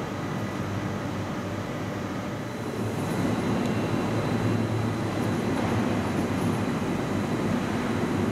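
SBB Re 460 electric locomotive pulling its train out of the station, a steady running noise that gets louder about three seconds in as the locomotive draws past.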